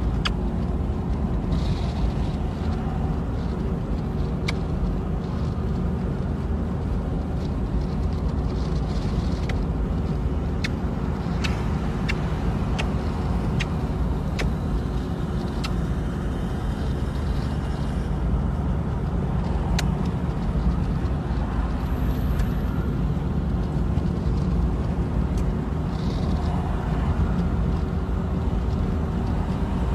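Steady road and engine rumble heard from inside a moving car's cabin, with a faint steady hum and a scattering of light clicks.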